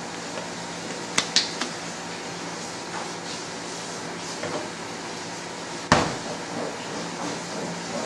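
Kitchen utensils and containers being handled while a marinade is mixed: a quick run of three light clicks about a second in and one sharp knock near six seconds, with a few softer knocks, over a steady hum.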